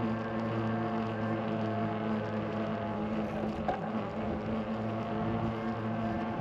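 A motor running at a steady pitch: a low, even hum with evenly spaced overtones. A brief click comes a little over halfway through.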